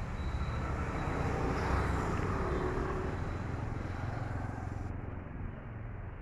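A motor vehicle passing, a low engine and road noise that swells about two seconds in and then slowly fades.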